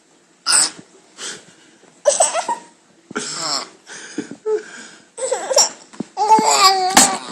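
A young child burping in a string of short bursts, the later ones turning into pitched, wavering vocal sounds like giggling.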